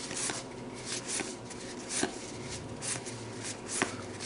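Baseball trading cards being flipped through by hand, each card sliding off the stack with a short papery swish, about two a second, with an occasional sharp click of card on card.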